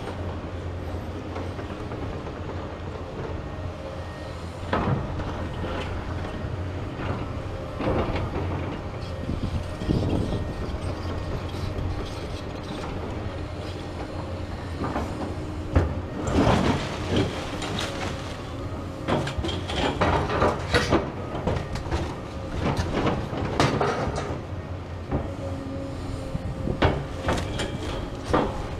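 Tracked demolition excavators' diesel engines running steadily, with scattered metallic knocks and clanks from steel tracks and buckets on rubble, growing into busy clattering in the second half.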